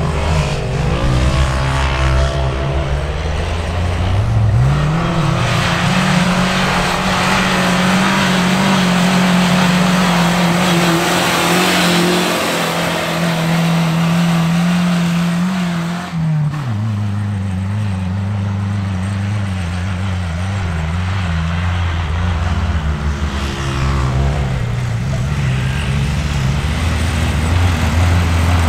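Toyota pickup's engine driven hard on sand: it revs up about four seconds in, holds at high revs for about ten seconds under a loud rushing noise of spinning tyres throwing sand, then drops sharply and runs on at lower, rising and falling revs.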